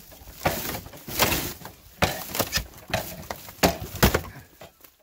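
Irregular sharp knocks, cracks and scraping of rotted wooden boards being pried and pulled apart on an old wooden chicken coop being demolished.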